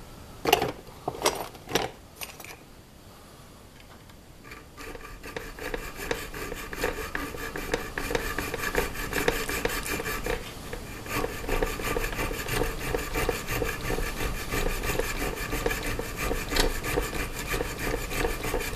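Hand file rasping back and forth on the steel slide of a 1911 pistol at the sight dovetail, easing a tight sight to fit. A few light clicks come first, then about five seconds in a steady run of strokes starts, each with a metallic ring.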